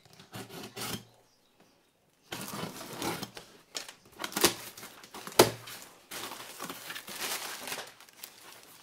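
Cardboard parcel being opened by hand: packing tape slit with a box cutter and torn, the cardboard flaps pulled open, and plastic packing crinkling near the end. Irregular rustling and scraping, with two sharp knocks a little after the middle.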